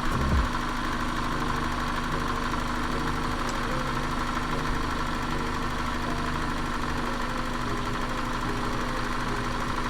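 1990 Toyota Celica GT engine idling steadily with a new accelerator cable fitted, with a couple of low thumps right at the start.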